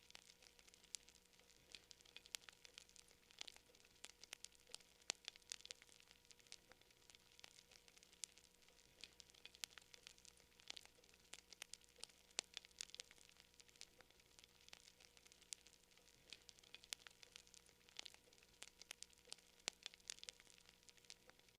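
Faint crackling of a wood campfire: a steady stream of small, irregular sharp pops and snaps over a soft hiss.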